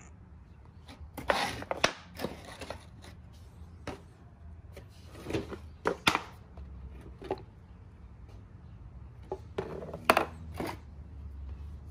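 Hands handling a new air filter and the plastic air filter housing: scattered knocks, clicks and rustling in three short clusters, about a second in, around five to six seconds, and around ten seconds.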